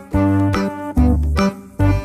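Instrumental background music with a steady rhythm of short keyboard-like notes over a strong bass line.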